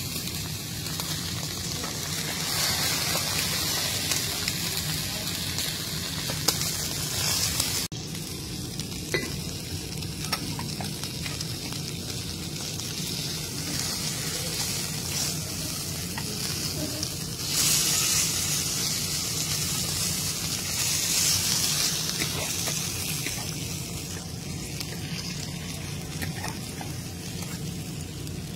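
Beef steaks sizzling as they sear in their fat on a flat steel teppan griddle. The sizzle runs steadily, with a few light crackles, and grows louder for a few seconds near the start and again past the middle, dropping abruptly about eight seconds in.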